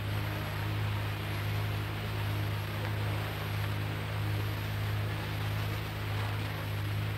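Steady hiss with a low mains hum: the background noise of an old 1954 live recording, heard in a pause in the recitation.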